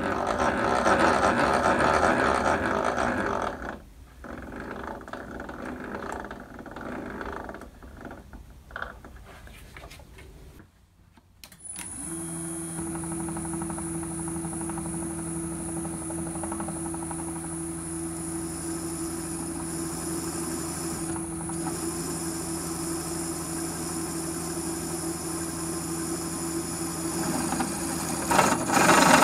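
Drill press spindle turning a centre drill into a cast-iron casting. The cutting is loud for the first few seconds and then fades. After a short break the motor runs with a steady hum and a high whine, and the cutting grows louder near the end as the drill bites in.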